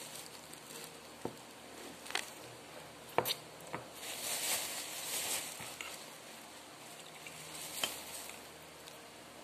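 A foil snack packet crinkling and rustling as it is handled over a mug, with a handful of sharp clinks from a metal spoon against the mug. The crinkling is densest about four to five and a half seconds in.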